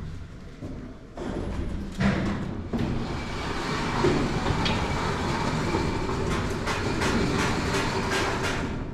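Elevator running in its shaft: a steady rumble with rattling clicks that starts about a second in and grows louder a second later.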